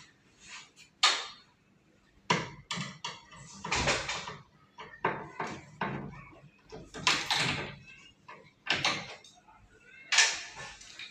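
Irregular knocks and clatters of hard objects being handled, about a dozen sharp hits, each dying away quickly with a short ring, in a small room.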